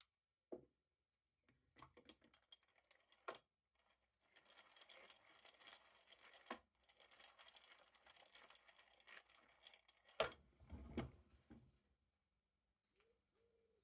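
Vintage hand drill being cranked, a faint, fast clatter of its gears in two spells, with scattered clicks and knocks and a louder thump near the end.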